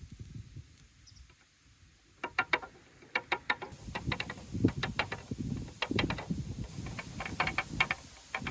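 Balls rolling down a marble run in the grooves of a park bench: a low rolling rumble, then from about two seconds in a rapid, irregular run of clicks and knocks as they drop and bounce along the course.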